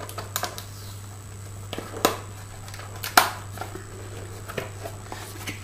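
Paper packaging being handled and opened by hand: rustling with a few sharp crinkles, the loudest about three seconds in, over a steady low hum.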